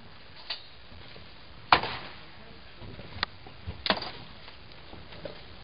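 Sledgehammer blows against the weathered wooden planks of an old shed: four sharp wooden whacks, two of them light and two loud.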